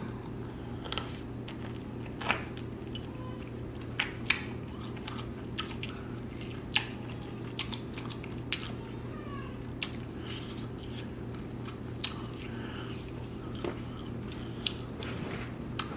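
A person chewing boneless buffalo wings, with scattered sharp wet clicks and smacks of the mouth at irregular moments.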